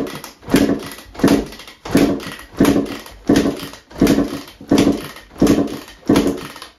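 Warm two-stroke engine turned over repeatedly for a compression test with the gauge in the plug hole: about ten strokes in a steady rhythm, roughly one every 0.7 seconds, each a sharp start that dies away over half a second.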